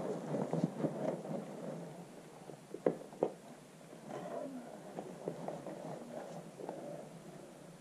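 Climbing shoes and hands scuffing and knocking on the granite boulder during the top-out, with irregular scrapes and two sharp knocks about three seconds in.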